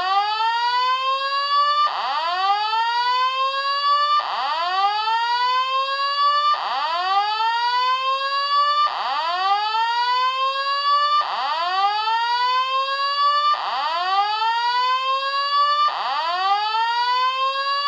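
Hotel emergency alarm system sounding a rising sweep tone, repeated about every two and a third seconds: each sweep climbs quickly, levels off and cuts off sharply before the next begins.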